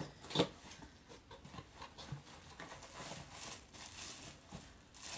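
Paper packaging rustling and crinkling as a gift is unwrapped by hand, with a sharp tap about half a second in.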